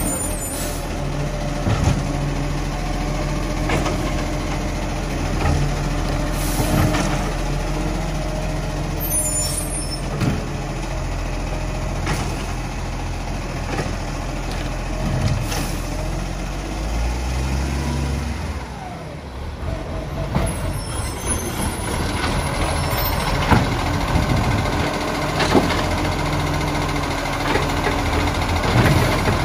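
Side-loader garbage trucks at work: the diesel engine runs and revs as the hydraulic arm lifts and empties wheelie bins, with scattered knocks of the bins and arm and short hisses of air.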